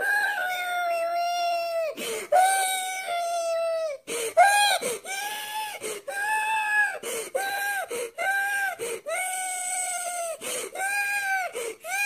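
A grown man crying, his voice pitched up so it sounds like a wailing baby: two long high wails, then a quick run of shorter sobbing cries broken by sharp catches of breath.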